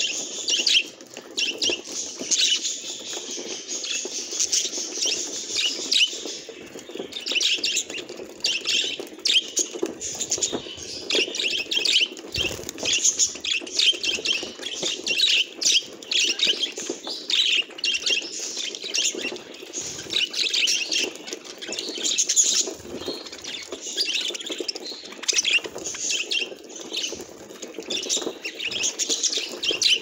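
A flock of budgerigars chattering, a steady, dense mix of quick high chirps and twitters.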